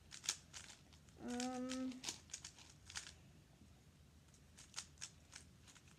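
Plastic speed cubes, a 3x3 and a 6x6, being turned by hand: scattered sharp clicks and clacks of the layers snapping round. A child's short steady hum about a second in.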